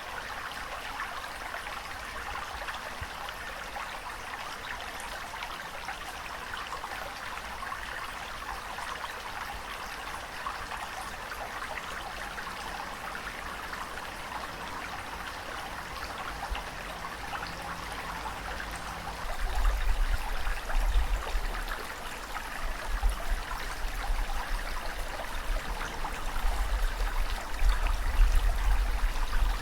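Steady rushing, trickling water. About two-thirds of the way in, a deep, uneven low rumble joins it and comes and goes, making it louder.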